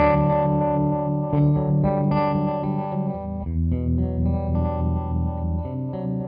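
Electric guitar chords played through a CopperSound Loma Prieta tremolo pedal set to harmonic tremolo, the sound pulsing with the tremolo. The chord changes about three seconds in and again near the end.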